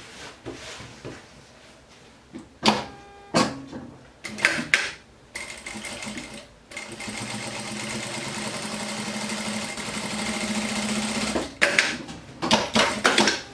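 Industrial straight-stitch sewing machine running steadily for about six seconds, stitching a finishing seam around the edge of a lined apron. Before it, fabric is handled with rustles and clicks, and more clicks follow after it stops near the end.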